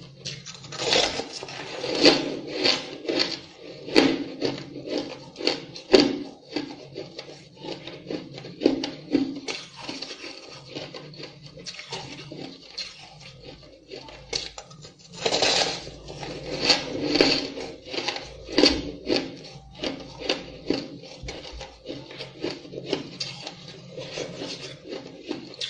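Ice being chewed close to the microphone: a dense stream of crunching and cracking, with heavier bouts of crunching about a second in and again about fifteen seconds in.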